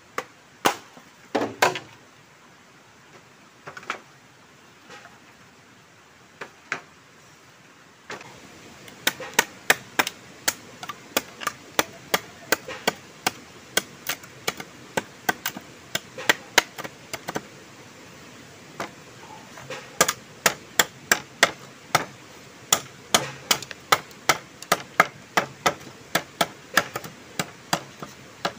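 Machete blade chopping along a bamboo pole, a run of sharp strikes at about two a second. Before that, in the first few seconds, a handful of separate knocks.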